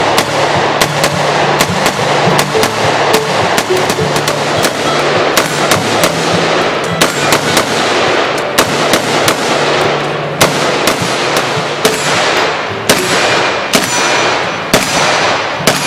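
Gunfire from semi-automatic AR-15-style rifles, shots coming in quick, irregular strings throughout, over background music.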